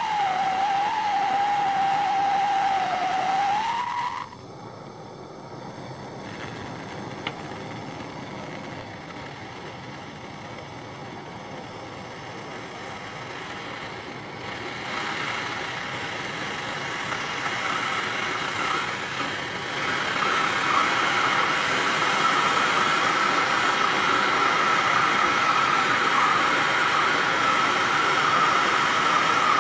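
Gas torch flame running with a rushing hiss and a steady whistle, heating glass to seal a tungsten lead into it. It starts suddenly, drops much quieter about four seconds in, then grows steadily louder, with a higher whistle coming in about twenty seconds in.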